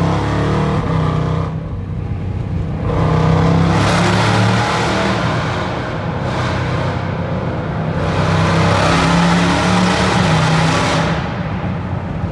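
Jeep Grand Cherokee Trackhawk's supercharged 6.2-litre Hemi V8 running through a Gthaus valved cat-back exhaust, heard from inside the cabin. It swells louder twice under acceleration, about three seconds in and again about eight seconds in.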